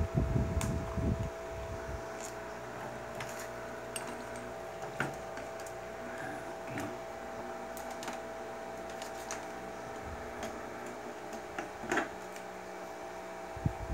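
Hands handling test gear and wiring: scattered light clicks and taps, with a low rumble of handling in the first second or so, over a steady electrical hum.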